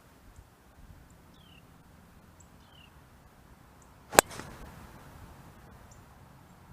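A single sharp crack of a golf club striking the ball on a full tee shot, about four seconds in. Faint short falling bird chirps sound earlier.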